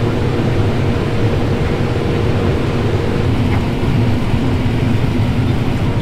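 Combine harvester running steadily while harvesting corn: a loud, even drone with a faint steady hum over it.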